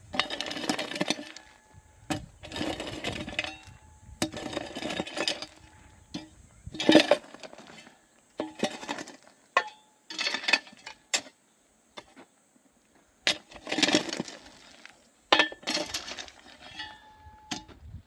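Metal hoe chopping into and dragging through dry, stony soil: a sharp strike, then a gritty scrape of dirt and pebbles, repeated over and over with short pauses, with the odd clink of the blade on stone.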